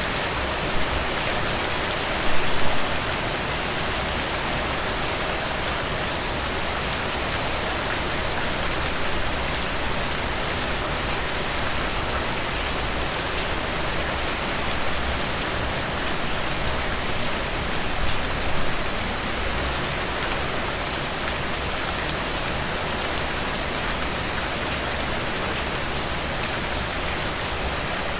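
Steady rain falling on leaves, an even hiss dotted with the patter of single drops, with a couple of brief louder spatters.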